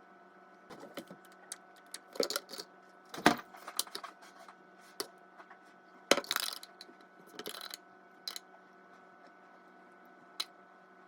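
Irregular clicks and clattering rattles of small hard objects being handled, loudest about three seconds in and again about six seconds in, over a faint steady electrical hum.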